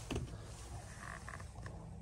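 A dull thump just after the start, then a few faint creaks and scrapes about a second in: handling noise of someone moving about in the cab of an old pickup, over a low steady hum.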